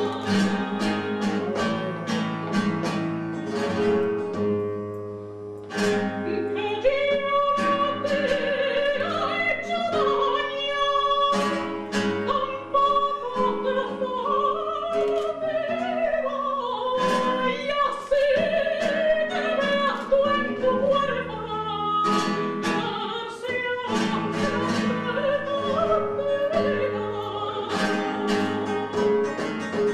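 A soprano singing a flamenco cante in an operatic voice, with long, wavering sung lines, accompanied by a flamenco guitar that strums and plucks under and between the phrases.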